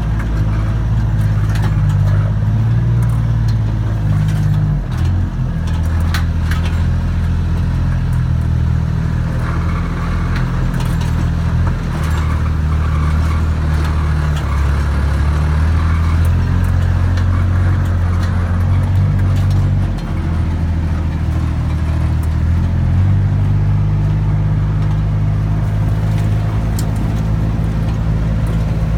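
A vehicle engine running steadily at low speed, its pitch stepping up and down a few times as the speed changes, with light rattles and clatter over rough ground.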